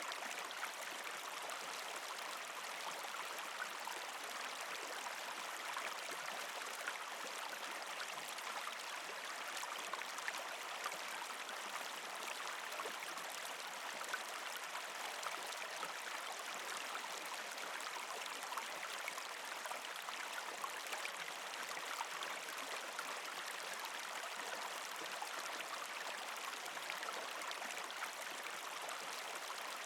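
Partially frozen creek flowing over rocks: steady water rushing and gurgling, with small splashes now and then.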